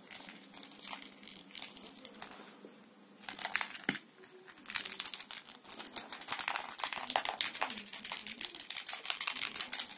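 Crinkling, rustling handling noise made of many small crackles, light at first and thickening over the second half, with a single sharp thump just before the midpoint.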